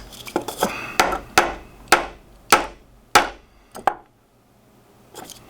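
Brass hammer tapping a steel shaft into a 3D-printed snap-ring jig to drive the shaft through the ring: a string of sharp taps about every half second, a quick double tap near the four-second mark, and one last tap near the end.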